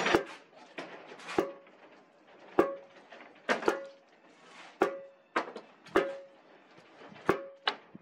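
Metal striking the wooden formwork of a lintel: about ten sharp knocks at uneven intervals of roughly a second, each with a short metallic ring.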